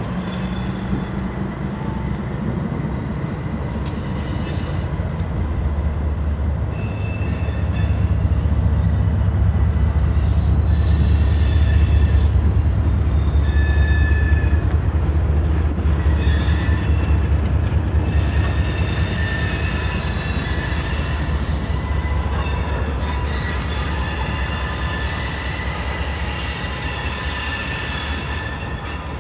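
Freight train of coal gondolas rolling past on a curve: a heavy low rumble, loudest in the middle, with high-pitched wheel squeals coming and going throughout.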